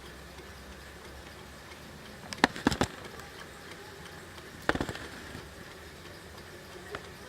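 Sharp clicks and knocks in two short clusters about two seconds apart, then one lighter click near the end, over a faint steady background.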